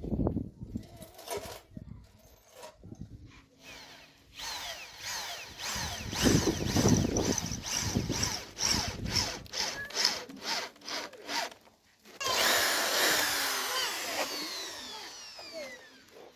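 Power drill boring rivet holes for a motorcycle platform: a few knocks and taps first, then the drill runs in pulses with its whine rising and falling, and after a short break a longer run that falls in pitch as it winds down near the end.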